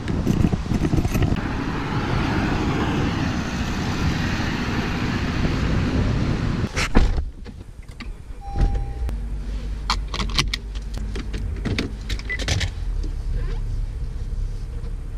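Wind and rustling on the camera microphone, then a car door shuts with a thud about seven seconds in. After it, the car's engine runs quietly from inside the cabin, with scattered clicks and one short chime.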